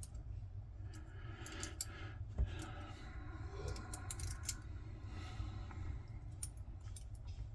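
Scattered light clicks and short scrapes of small metal lock parts being handled: the pins and springs of a gutted padlock. A steady low hum runs underneath.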